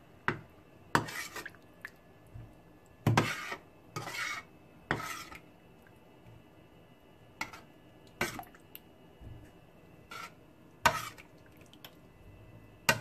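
Slotted metal spoon scraping and clinking against a metal frying pan while a thick curry is stirred, in about ten separate strokes at irregular spacing.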